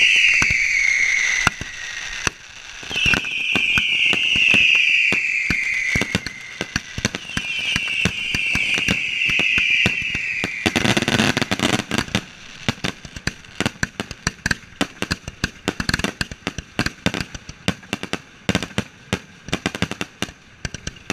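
Fireworks going off. There are three long whistles, each falling in pitch, and then from about halfway a dense run of sharp crackling pops and bangs.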